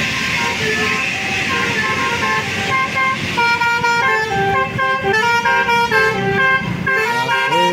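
Bus 'telolet' Basuri multi-trumpet air horn playing a tune of held notes that step up and down in pitch, over the noise of the passing bus. The tune grows louder from about three seconds in, and the notes slide in pitch near the end.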